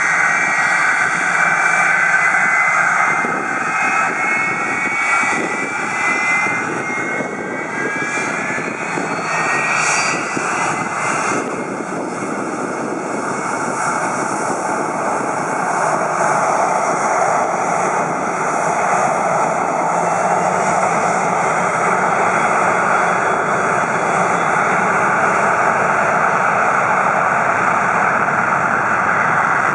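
McDonnell Douglas MD-82's rear-mounted Pratt & Whitney JT8D turbofans whining with gliding tones, then spooling up to takeoff power: the whine gives way to a loud, steady jet noise about twelve seconds in as the takeoff roll begins.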